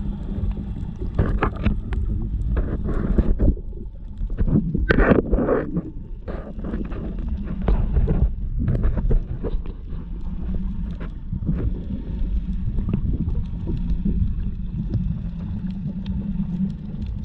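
Underwater sound picked up by a camera in a waterproof housing: a steady muffled low rumble of moving water with scattered clicks and crackles, and a louder sloshing burst about five seconds in.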